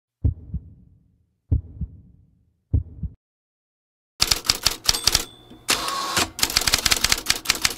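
Intro sound effects: three low double thumps about a second and a quarter apart, beating out a film countdown, then after a short pause a fast run of typewriter key clacks with a brief ringing tone or two, as a title is typed out letter by letter.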